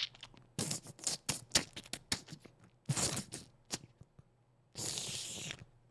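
Mouth-made sound effects: a run of sharp tongue clicks and short hisses, then a steady hiss of a little under a second near the end, imitating a flurry of sword slashes.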